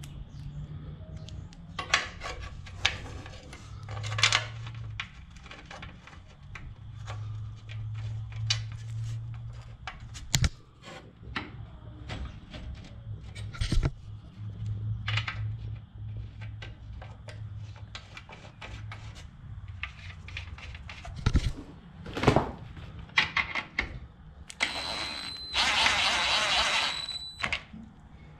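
Scattered metallic clicks and clinks of bolts and washers being handled, then near the end a 20-volt cordless drill runs with a steady high whine for about three seconds, drilling a bolt hole through the sheet-metal radiator core support.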